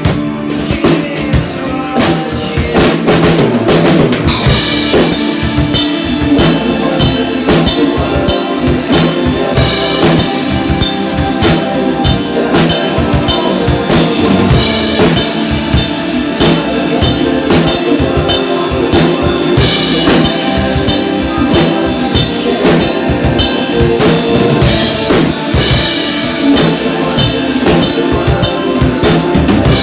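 Music with a drum kit playing a steady beat: bass drum, snare and rimshots under sustained instrumental tones.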